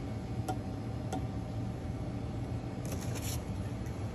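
Light handling of the light bar's hardware: two faint clicks in the first second or so, then a brief rustle of the cardboard shipping box being lifted about three seconds in, over a steady low hum.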